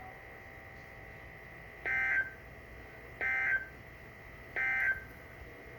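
Three short bursts of Emergency Alert System digital data tones (the SAME end-of-message signal) from a NOAA Weather Radio broadcast, evenly spaced about a second and a half apart. They mark the end of the special marine warning.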